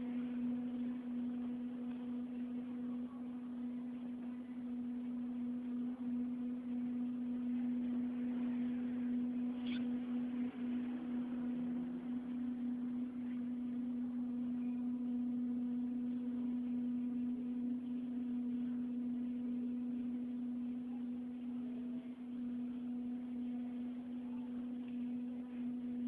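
A steady, unexplained low droning hum at one pitch with faint overtones and light background hiss: the 'strange sound' reported heard in the night.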